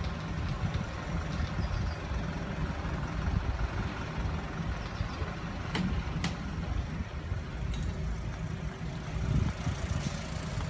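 Diesel engines of construction machinery running steadily, a low rumble, with two sharp clicks about six seconds in.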